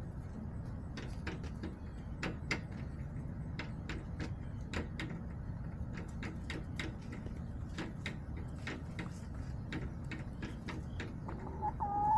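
Irregular sharp taps and clicks of chickens pecking at a hard surface, over a steady low rumble; near the end a hen gives a short call.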